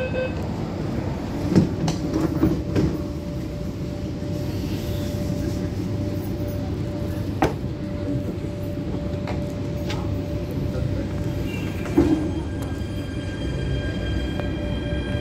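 Rotem-built MTR Tung Chung Line electric train running on the line: a steady rumble of wheels on track with a steady tone over it. A few sharp clicks break in, and more high tones join near the end.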